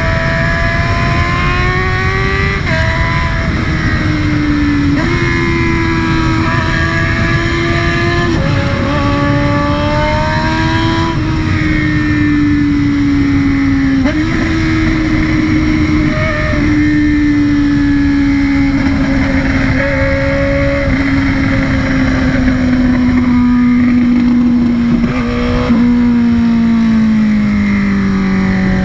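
Honda CBR600F inline-four engine and exhaust under way, revs climbing and dropping back at several gear changes in the first half. In the second half the pitch falls slowly and steadily as the bike slows, dropping more quickly near the end.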